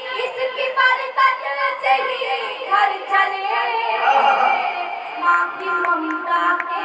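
A woman singing lines of Urdu poetry in a melodic, sung style (tarannum), her voice amplified through a microphone and loudspeakers.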